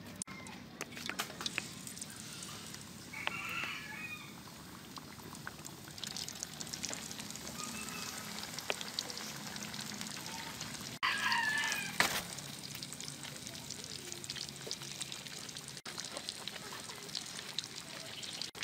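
Battered chicken pieces deep-frying in hot oil, a steady sizzle with dense crackling. A chicken calls twice, about three seconds in and more loudly about eleven seconds in.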